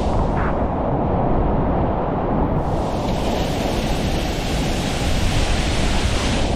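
Steady rush of a waterfall and river cascading over rocks, a dense even noise with no distinct events.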